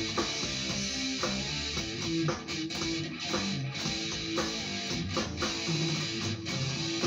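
Guitar being played, picked notes and strummed chords changing every fraction of a second, over a steady hiss.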